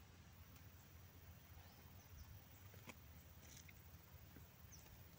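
Near silence: faint outdoor ambience with a few short, high chirps and one light click about three seconds in.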